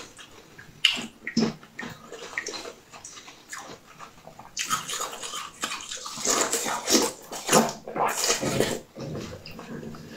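Close-miked biting and chewing of a translucent blue piece of food: scattered clicks and mouth sounds, then a dense run of crunching and chewing in the second half.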